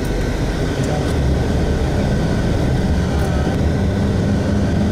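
Low, steady rumble of a motor vehicle's engine. A hum in it grows stronger about two seconds in.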